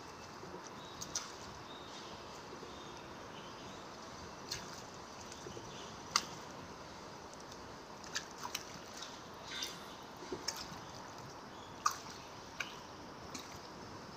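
Water dripping and splashing lightly into the river: scattered single drips at uneven intervals over a steady, soft background hiss.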